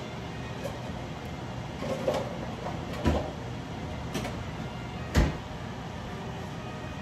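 Cheese being grated by hand on a metal grater, with four sharp knocks about a second apart, the loudest about five seconds in, over a steady low hum.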